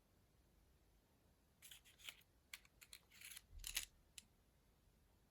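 Faint handling of small watch crowns in their assortment box: a quick run of light clicks and short scrapes lasting about two and a half seconds, starting a little over a second in.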